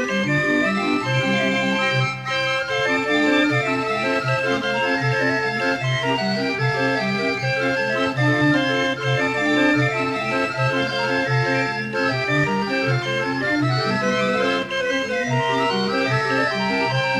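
Barrel organ playing a lively carnival tune, with a pulsing bass line under a reedy melody and no break.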